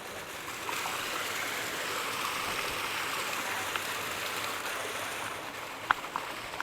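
Water rushing over rocks in a small waterfall cascade, a steady hiss that swells about a second in and eases near the end. Two short sharp clicks come just before the end.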